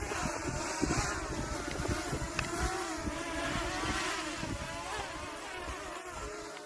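Small quadcopter drone's propellers whining, several pitches wavering up and down as the rotors change speed, growing a little fainter near the end.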